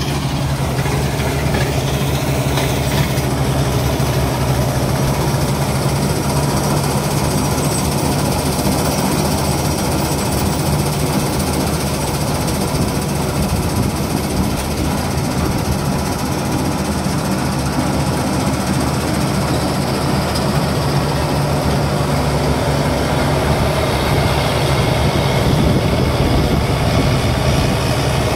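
Farm diesel engines running steadily with a rough clatter: a tractor close by and a Claas Crop Tiger combine harvester cutting and threshing soybeans. It grows slightly louder near the end.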